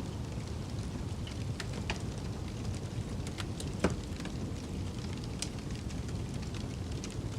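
Wood fire crackling in a fireplace: scattered sharp pops and snaps, the loudest about four seconds in, over a steady low rumble.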